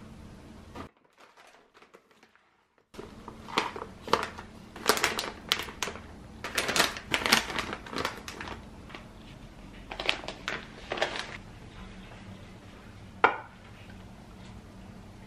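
Plastic food-packaging bags crinkling in irregular bursts as hands pick them up and turn them over, after a brief silence. A single sharp knock near the end.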